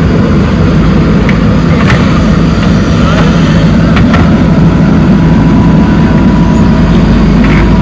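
Heavy diesel machinery engine running steadily under load, with a few short knocks about a second, two seconds, four seconds and near the end.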